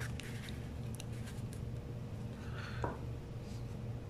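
Small tarantula vials being handled and set down on a table: a few faint plastic clicks, then a sharper knock about three seconds in as one container is put down, over a steady low hum.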